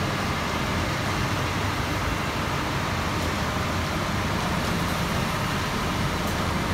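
Concrete mixer truck's diesel engine running steadily while the truck discharges concrete down its chute, a continuous low rumble.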